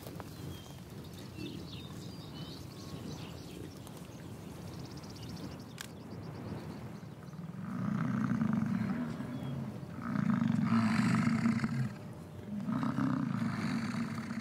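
Rutting bison bellowing: three long, deep roars one after another in the second half, each lasting about two seconds.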